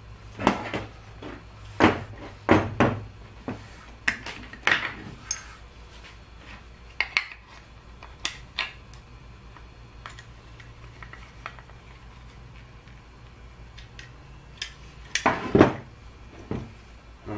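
Tools and metal parts clinking and knocking on a wooden workbench as they are handled and set down: scattered sharp clicks through the first half. About fifteen seconds in there is a louder cluster of clunks as a small metal clamp holding the opened power-supply case is put down on the bench.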